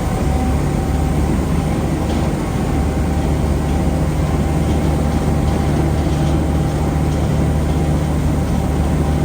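Heavy farm machinery running steadily at a constant speed, with a loud, even low hum.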